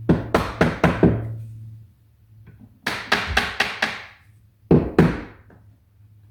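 Sharp knocks on wood, tapping a wooden door-frame piece into place: a quick run of about five blows, another run of about five a couple of seconds later, then two more.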